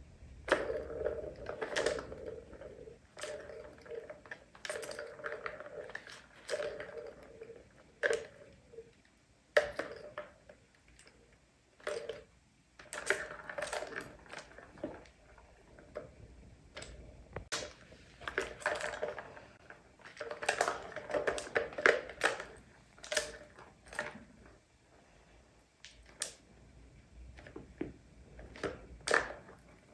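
Plastic balls rolling and rattling around the tracks of a plastic cat-toy tower as kittens bat at them, in irregular bursts, with many sharp clicks and knocks as paws strike the balls and the plastic.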